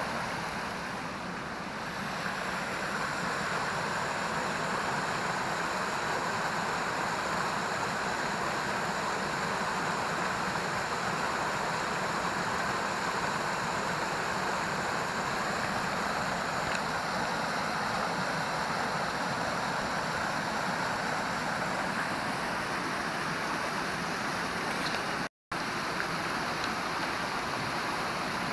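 Waterfall rushing steadily, an even hiss of falling water that drops out for a split second near the end.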